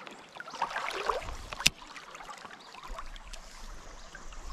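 Shallow creek water trickling and lapping, with small handling ticks and one sharp click a little before two seconds in.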